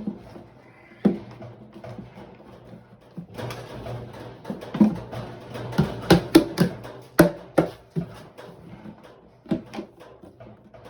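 An outboard motor's cover knocking and clattering as it is handled and worked into place. The knocks come irregularly, sparse at first and then thick and quick through the middle and latter part.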